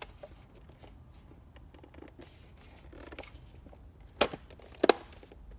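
Plastic parts of a Porsche Boxster instrument cluster being handled and fitted together: light rustling and scraping, then two sharp clicks less than a second apart about four seconds in.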